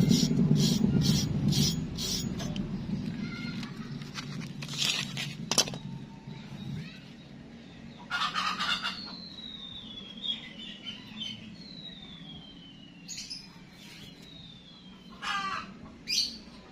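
Bird calls: scattered short calls and a few falling whistles, over a low rumble that fades away during the first several seconds.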